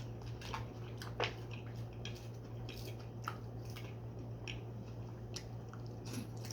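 A person chewing a mouthful of chicken Caesar pasta salad, with scattered short wet clicks and crunches from the mouth, the sharpest about a second in, over a steady low hum.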